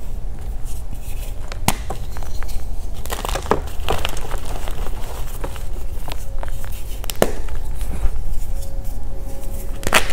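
Water-reformed gym chalk being crushed and crumbled by hand: irregular dry crunching and crackling with a few sharper snaps, over a steady low rumble.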